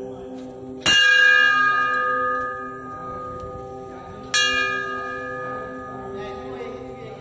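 Hanging brass temple bell rung twice by hand: its clapper strikes about a second in and again about three and a half seconds later. Each strike rings in several tones and fades over a couple of seconds, the first a little louder.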